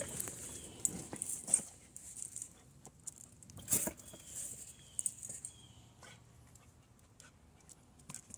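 Carolina dog sniffing and snuffling into a tyre's wheel rim and scraping at it with her paws, in short irregular bursts with a few faint, brief high whines, trying to reach something stuck inside the wheel.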